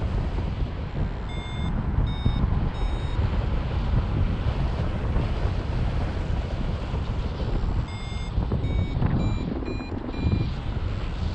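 Wind rushing over the microphone of a paraglider in flight, with a flight variometer beeping over it. Three short beeps come about a second in, then five more near the end that step up slightly in pitch, the tone a vario gives while the glider is climbing.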